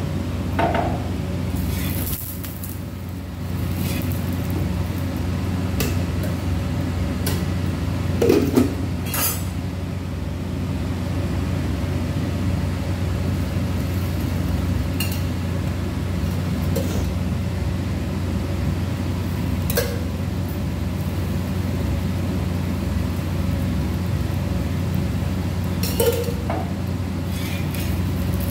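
Scattered clinks and knocks of a steel spatula and steel kitchen utensils against a tawa griddle as a roti cooks, over a steady low hum.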